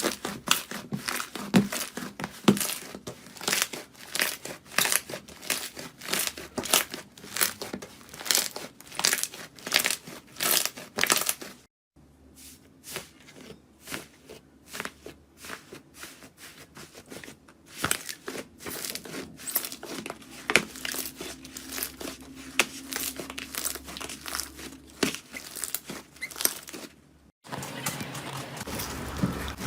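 Slime being squeezed and poked by hand, giving dense crackling, popping clicks several times a second. The sound cuts off abruptly about twelve seconds in, where a quieter, sparser stretch of clicking begins, and again near the end.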